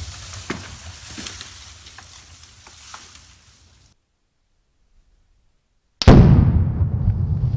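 The tail of a Tannerite blast fading away with scattered cracks, then dead silence from a cut, then about six seconds in a sudden, very loud Tannerite explosion followed by a long low rumble.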